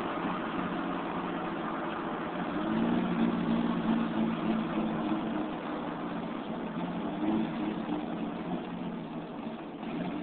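Dodge Ram's 6.7 Cummins inline-six turbo diesel running with its DPF deleted and a straight turbo-back exhaust to dual stacks, under way. The exhaust gets louder a couple of seconds in and holds for about two seconds, swells again briefly later on, then eases off near the end.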